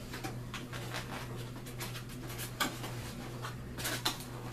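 Cardboard box and paper packing rustling and scraping as a candle stand is unpacked by hand, in irregular bursts over a steady low hum.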